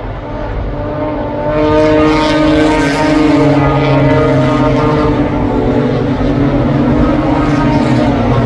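A pack of historic Jaguar racing cars passes at speed, several engines running hard and overlapping. The sound grows sharply louder about a second and a half in as the cars arrive, then stays loud.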